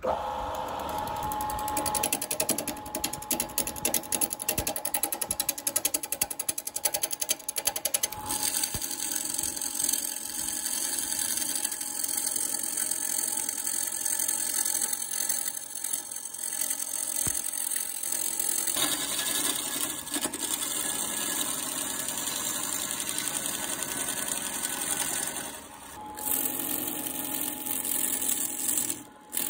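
Wood lathe spinning a wood-and-epoxy blank while a hand gouge cuts into it, throwing shavings. Rapid knocking for the first eight seconds or so as the tool meets the corners of the still-square block, then a steadier scraping cut, broken briefly twice near the end.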